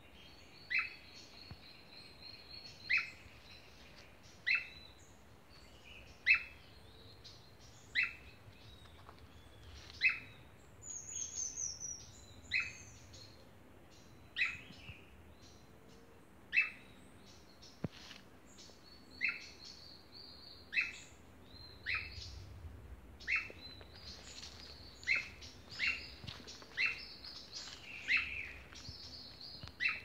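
Atlantic Forest birdsong: one bird repeats a short, sharp note that slurs downward, about every second and a half at first and closer to once a second near the end. A thin, steady high tone runs behind it at times, and a brief higher trill comes about a third of the way in.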